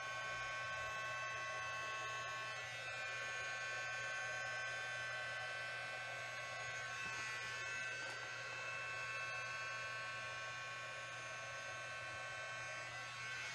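Small handheld electric blower running steadily with a constant whine, blowing air over wet acrylic pour paint.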